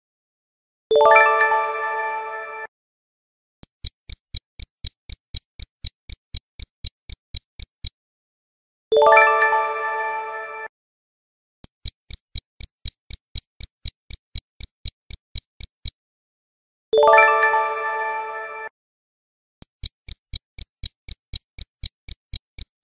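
Stopwatch ticking sound effect, about three sharp ticks a second, for a quiz countdown. Three times it stops for a bright ringing ding that lasts just under two seconds and fades away.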